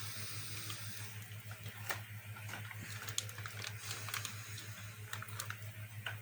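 Faint clicks and light rustling of an open plastic snack packet being handled, over a low steady hum.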